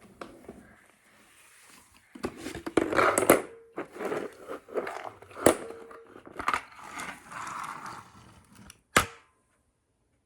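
Loose plastic LEGO bricks clattering and rattling in several uneven bursts, with a sharp knock about halfway through and another near the end.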